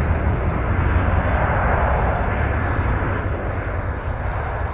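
Boeing 737 jet engines running at take-off power during the take-off roll: a loud, steady jet roar with a deep rumble underneath, easing slightly near the end.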